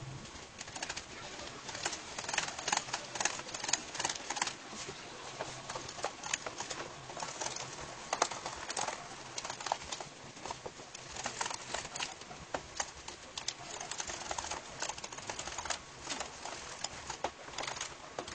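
Hand whisk beating butter and cocoa powder in a bowl, a fast, uneven run of clicking and scraping strokes against the bowl.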